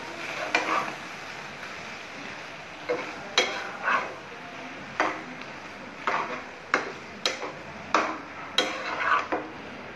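Metal spoon stirring and scraping pieces of beef tripe in a frying pan, over a steady sizzle. The scrapes and clinks come a few times near the start, then about one or two a second from about three seconds in.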